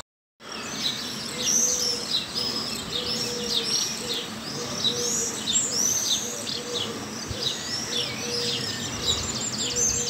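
Early-morning chorus of many small birds chirping and twittering over one another, with a low short note repeating about once a second underneath.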